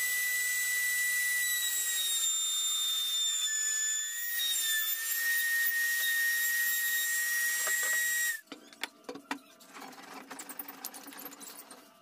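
High-speed electric power tool running with a steady high-pitched whine and hiss. Its pitch dips slightly a couple of seconds in, as under load. It cuts off abruptly about eight seconds in, followed by a few light knocks.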